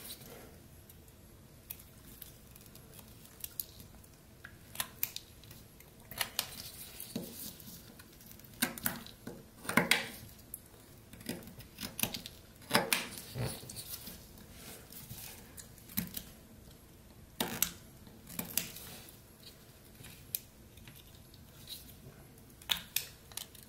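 Pocket knife blade slicing and scraping into pine in short, irregular cutting strokes, each a brief crisp scrape, as the wood is whittled.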